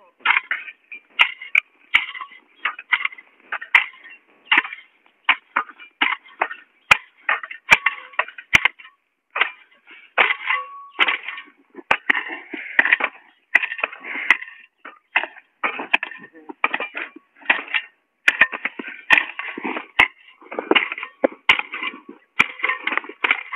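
Hand hoe chopping and scraping dry, hard soil and weeds in short irregular strokes, about two a second, with sharp clicks among them.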